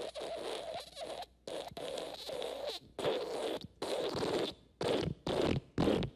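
Fart sound effect: a run of noisy, sputtering bursts of breaking wind, longer ones at first and then several short ones in quick succession near the end.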